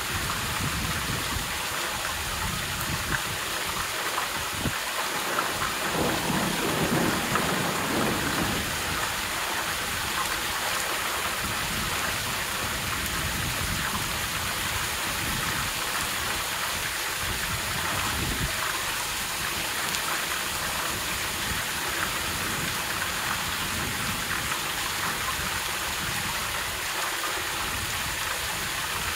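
Steady heavy rainfall, with a low rumble of thunder swelling about five to nine seconds in.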